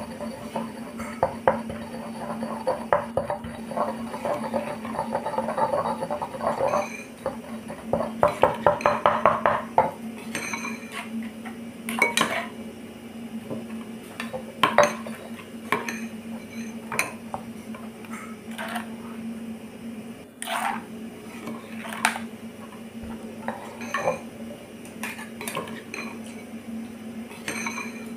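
Kitchen utensils knocking and clinking: a stone pestle pounding chillies in a granite mortar, in quick knocks for about the first ten seconds, then scattered clinks of a metal spoon against stone and bowl. A steady low hum sits underneath.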